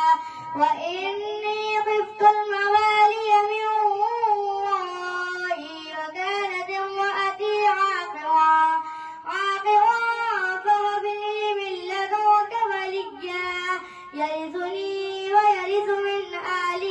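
A boy reciting the Quran in the melodic tilawat style. He holds long, ornamented notes in phrases several seconds long, separated by brief pauses for breath.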